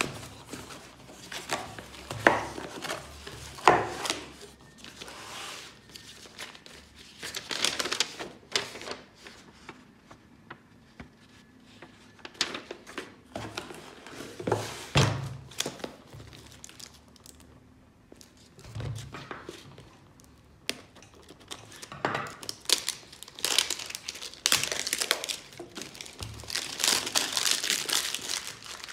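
Irregular crinkling and rustling handling noises, broken by scattered sharp clicks and light knocks.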